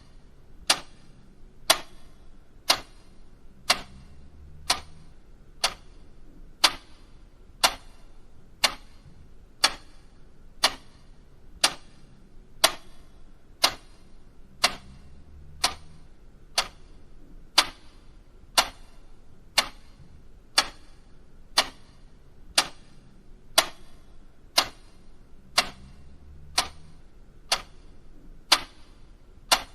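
Mechanical clock ticking steadily, one sharp tick about every second.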